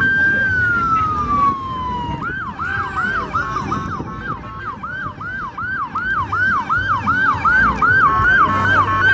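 Electronic vehicle siren: a held tone that falls in pitch about two seconds in, then switches to a fast rising yelp, nearly three sweeps a second, over a low rumble.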